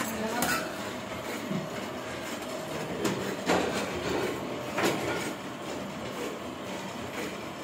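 Steady mechanical running noise of an offset printing press, with a few sharp clicks and scrapes as a metal ink knife works yellow ink out of a tin.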